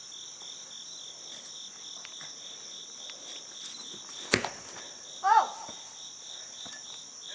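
Steady pulsing chirr of an insect chorus, with a single sharp thump a little over four seconds in as the soccer ball is kicked, and a brief shout from a person about a second later.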